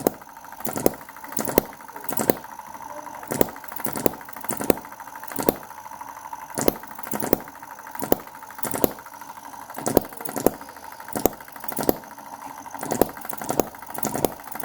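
Small model hit-and-miss gas engine running steadily after a rebuild of its valve timing, governor latch, carburetor, ignition timing and piston ring. Sharp firing pops come about every two-thirds of a second over a steady mechanical running sound and a constant thin whine.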